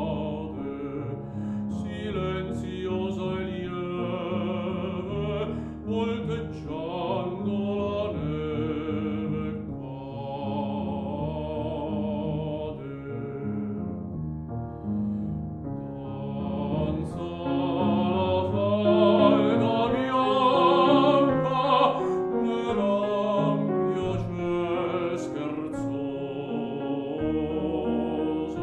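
Baritone singing an Italian art song with vibrato over piano accompaniment. The voice swells to its loudest about two-thirds of the way through.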